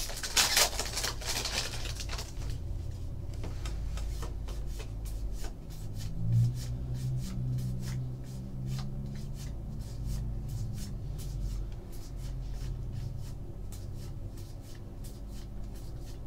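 Foil wrapper of a 2014 Bowman football card pack crinkling in the hands for the first couple of seconds. Then a stack of trading cards is thumbed through, the cards sliding over one another with a run of small sharp ticks.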